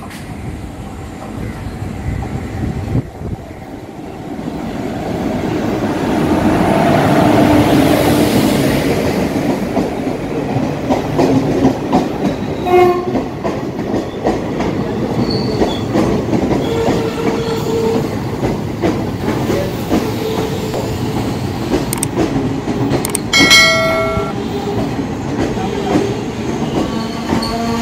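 WAP-4 electric locomotive-hauled passenger train arriving and its coaches rolling past with wheel and rail clatter. The rumble builds to its loudest about seven or eight seconds in and then runs on steadily. A brief horn blast comes about 13 seconds in, and a louder, short horn blast at about 23 seconds.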